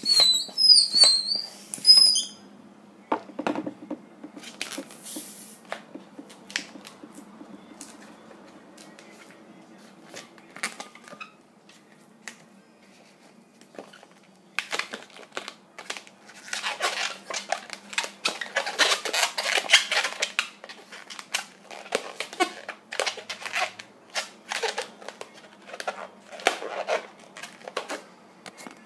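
Latex modelling balloon squeaking and rubbing as it is handled and twisted. A few sharp, high squeaks come in the first two seconds, then scattered crackles, growing into dense bursts of squeaking through the second half.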